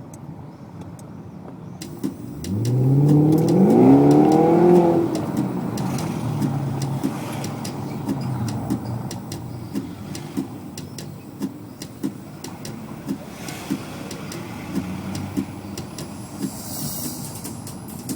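BMW 745i V8 with a custom-made exhaust revving: the engine note climbs sharply about two seconds in, is loudest over the next few seconds, then settles back to a lower run with scattered sharp clicks.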